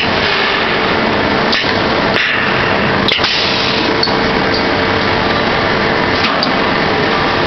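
Welding machine at work: a steady, loud crackling hiss over a constant hum, with a few sharp clicks in the first half.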